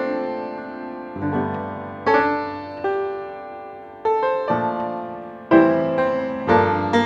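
Background piano music: slow notes and chords struck about once a second, each fading away before the next.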